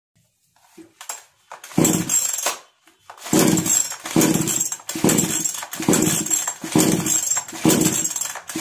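Recoil starter of a Kisan Kraft two-stroke chainsaw pulled about eight times, the first pull on its own and the rest quickly, about one a second. The engine turns over with each pull but never fires: the saw will not start even on choke.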